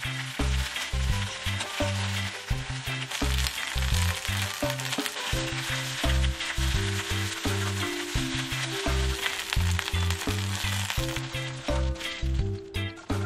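Spring onions sizzling in hot oil in an iron wok, stirred with a metal slotted spatula that scrapes and taps against the pan; the sizzle thins out near the end. Background music with a steady bass line plays throughout.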